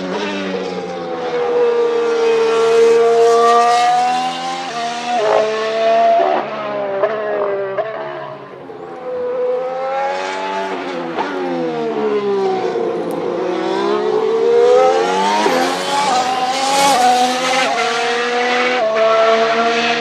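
Formula 1 turbo V6 hybrid power unit (the McLaren MCL34's Renault E-Tech 19) running at speed through corners. The revs rise and fall, with quick stepped gear shifts in the middle and again near the end.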